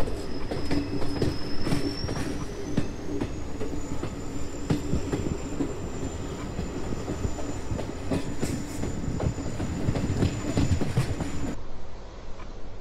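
Train running on the rails: a steady rumble with irregular wheel clicks and a high thin whine that rises a little about two seconds in. Near the end it cuts off abruptly into a quieter, duller hiss.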